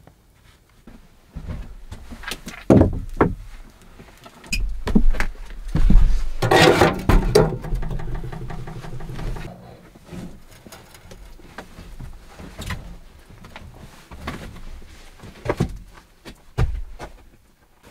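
Sheet-metal camp stove being handled in the dugout: a series of clanks and knocks, with a louder scraping rattle about six to nine seconds in.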